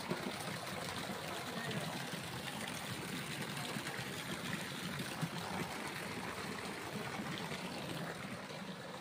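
Floodwater running across a street with a steady trickling, rushing sound.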